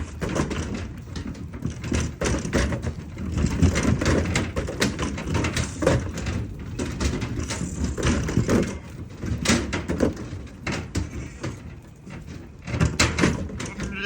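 Irregular knocking and clattering of a livestock trailer and its metal gates as lambs are loaded, many sharp knocks in quick succession.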